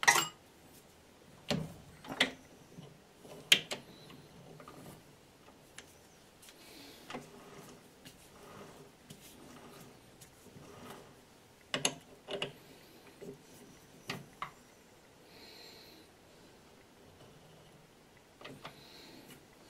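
Irregular sharp metal clicks and knocks, the loudest right at the start, from a three-jaw lathe chuck being turned by hand and the part held in it being adjusted and checked against a dial indicator. The lathe motor is not running.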